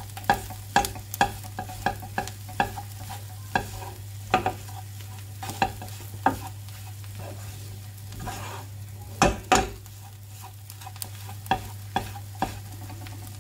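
Spatula stirring a potato and onion filling in a non-stick frying pan: irregular scrapes and knocks against the pan several times a second over a faint sizzle, with a steady low hum underneath. Two louder knocks come close together about nine seconds in.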